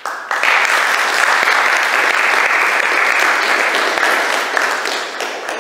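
Audience applauding, starting sharply just after the thanks and easing off near the end.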